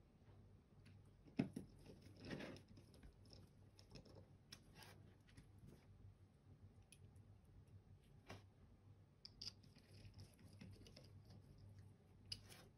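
Faint, scattered clicks and taps of small plastic computer-mouse parts and tools being handled during reassembly, the sharpest click about a second and a half in.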